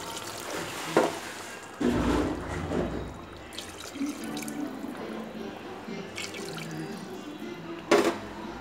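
Water poured from a tumbler into a pressure cooker of chicken masala, splashing into the thick gravy, louder for a second or so about two seconds in. A sharp knock about a second in and another near the end.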